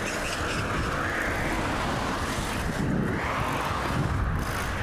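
Road traffic running past, a steady rush of tyre and engine noise, with wind rushing over the microphone of a moving bicycle.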